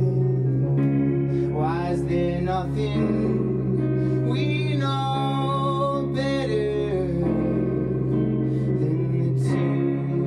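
Live band playing an instrumental passage: sustained synthesizer chords over a steady low drone, with electric guitar and a wavering melodic line above.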